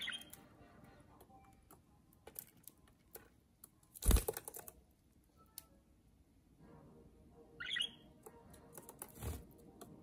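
Budgerigars pecking at seed in a small metal tray, a run of light clicks, with short chirps at the start and about eight seconds in. A loud thump about four seconds in and a softer one near the end.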